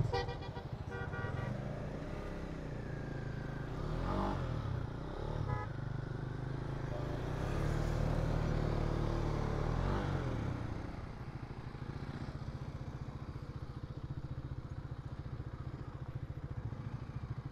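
Motorcycle engine running steadily while riding, swelling louder for a few seconds around the middle.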